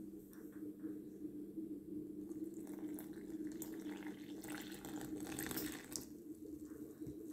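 Water poured from a cup into flour in a glass dish, a trickling splash lasting about three seconds in the middle, after fingers stir through the dry flour. A steady low hum runs underneath.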